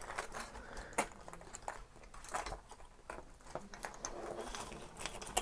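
Small ball ornaments clicking and tapping against one another and the wire star frame as they are pushed into it by hand: faint, irregular light clicks, with a few sharper ones.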